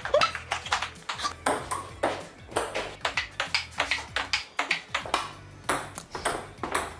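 Table-tennis rally on a small tabletop table: the plastic ball clicking sharply off the paddles and the table top, several hits a second.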